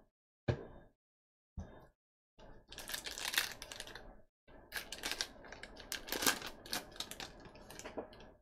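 Two short handling taps, then from about two and a half seconds in a trading-card pack wrapper being torn open and crinkled. It makes a dense run of crackling and clicking as the cards inside are pulled out and handled.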